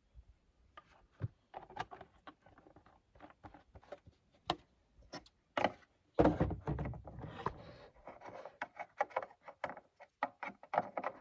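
A run of clicks and knocks from someone handling the vehicle, with one heavier thud about six seconds in that rumbles on briefly.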